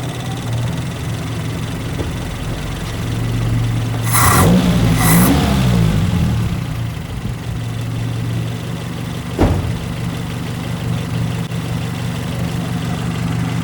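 Datsun 720's Z18 four-cylinder engine idling steadily after a new set of distributor contact points and freshly gapped spark plugs, running all good. It is revved briefly about four to five seconds in, and there is a single sharp knock later on.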